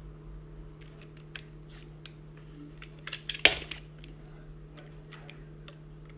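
Small scattered clicks and scrapes of a utility-knife blade working a tiny voltage-adjustment screw on a scooter charger's circuit board, with a louder cluster of scraping clicks about three and a half seconds in. A steady low hum runs underneath.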